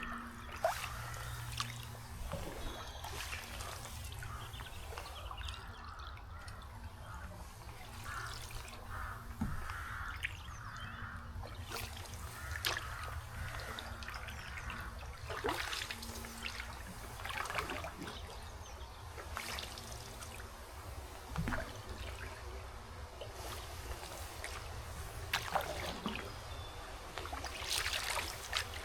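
Water trickling and dripping off a canoe paddle, with short splashes from paddle strokes at irregular intervals over a steady low rumble.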